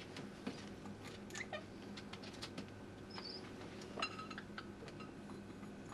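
Pionus parrot moving about with scattered light clicks and taps, and a couple of faint short chirps, over a steady low hum.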